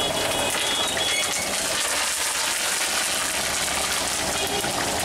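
Chicken pakora deep-frying in a kadai of hot oil: a steady, dense sizzle.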